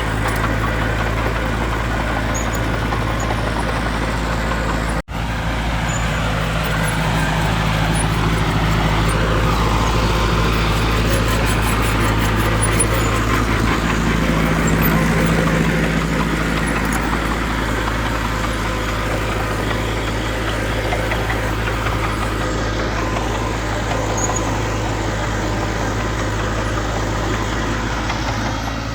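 Diesel engine of heavy earthmoving equipment running steadily, a little louder for a while in the middle, with a sudden brief break about five seconds in.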